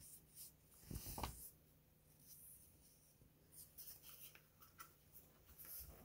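Faint rustling of a coat's fabric as it is handled and turned on its hanger, with a soft thump about a second in.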